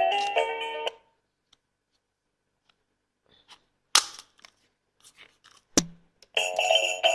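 Background music with a steady beat stops about a second in; after a pause, a few small ticks and two sharp clicks or snaps of handling sound, and the music starts again near the end.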